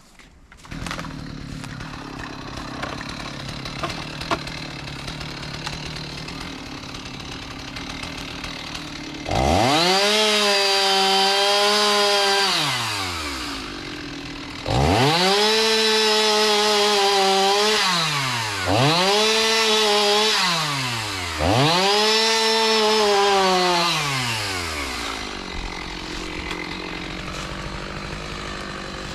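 Two-stroke chainsaw idling, then opened up to full throttle four times, each rising to a high steady whine for a few seconds while bucking a downed, ice-damaged tree, and dropping back to idle between runs.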